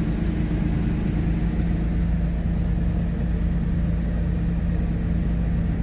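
Car engine idling steadily: an even, low rumble with a constant hum.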